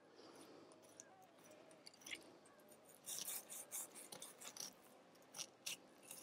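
Fillet knife slicing into a cod: faint, short scraping strokes of the blade through the flesh, coming in a quick irregular run from about halfway through.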